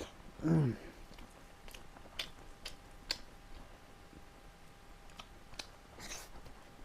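Close-up chewing of food, with scattered small wet clicks of the mouth. About half a second in there is a short falling hum from the eater's voice.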